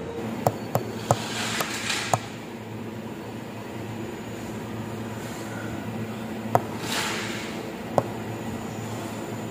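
Steady hum of factory machinery with several sharp clicks and two brief hissing swells, about two seconds in and again near seven seconds.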